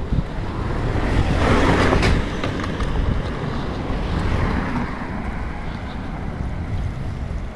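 A car passes on the road, its tyre and engine noise swelling to a peak about two seconds in and then fading as it drives off, over a steady low rumble.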